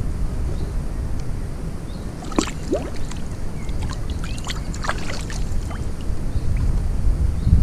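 Shallow water splashing and sloshing in a cluster of quick splashes a couple of seconds in, as a wels catfish held by hand in the water is let go, over a steady low rumble on the microphone.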